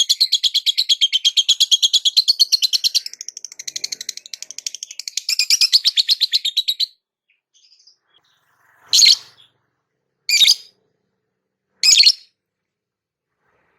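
Lovebird calling in a long, fast chirping trill that stops about seven seconds in, followed by three short separate calls about a second and a half apart.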